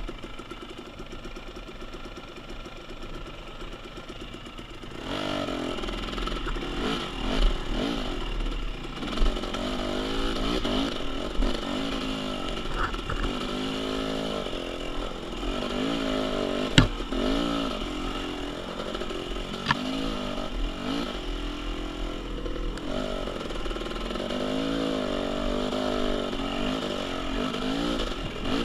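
KTM 300 XC-W TPI two-stroke dirt bike engine, running steadily at low revs for about five seconds and then revving up and down over and over on the trail. A sharp knock comes about 17 seconds in and another about 20 seconds in.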